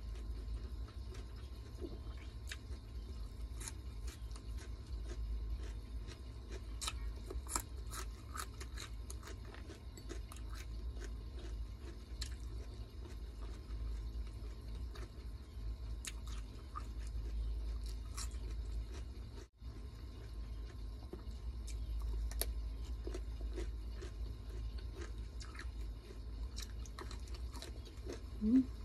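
Close-up eating sounds: a person chewing crisp fried dried fish (tuyo) with rice, scattered short crunches and clicks over a steady low hum. Near the end there is a brief low voiced sound.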